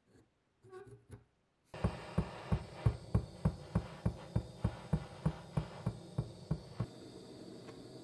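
A rubber mallet tapping a bent miniature machine-gun barrel held in a vise, straightening it while it is heated. The blows start about two seconds in, come at about three a second, and stop about seven seconds in, over the steady hiss of a butane torch that keeps going after them.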